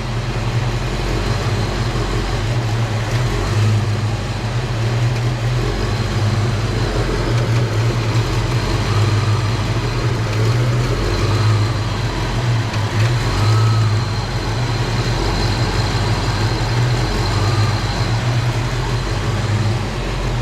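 Ford 5.0-litre V8 idling steadily with the air conditioning switched on at max, a faint steady high whine over the low engine note.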